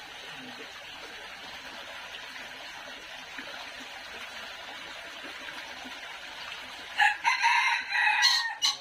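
A rooster crows once, loudly, for about a second and a half near the end, over a steady background hiss.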